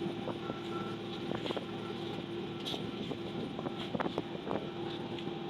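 Diesel engines of asphalt paving machinery running steadily, with a few short knocks and clanks about a second and a half in and again around four seconds in.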